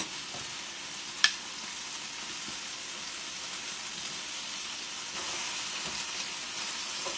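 Chicken wings frying with a steady sizzling hiss. A single sharp click sounds about a second in.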